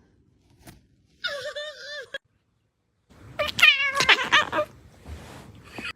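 Domestic cat meowing: a short wavering meow just after a second in, then a louder, longer run of meows from about three seconds in, with clicks among them.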